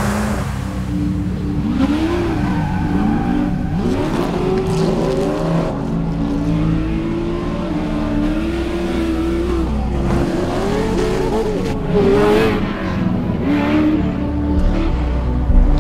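Off-road race truck and buggy engines revving hard, their pitch rising and falling over and over as they accelerate.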